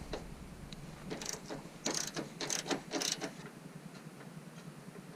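Hand ratchet wrench clicking in several short runs of strokes, working bolts loose.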